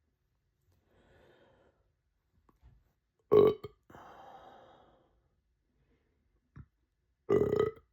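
A person burping loudly twice, about four seconds apart, each burp short and pitched. A softer, breathy sound follows the first burp.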